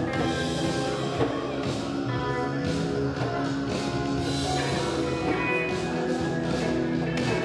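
Music playing: several instruments holding layered, sustained notes.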